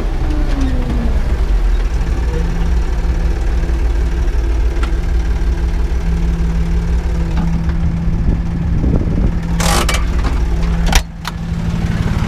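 Erkunt farm tractor's diesel engine running steadily under load, heard from inside the cab while pulling a harrow, its note falling just at the start as the revs drop. Near the end come a few sharp clunks as the cab door is unlatched and opened, and the sound turns suddenly quieter for a moment.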